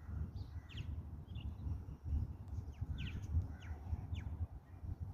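Steady, uneven low rumble with a few faint bird calls over it, short chirps that fall in pitch.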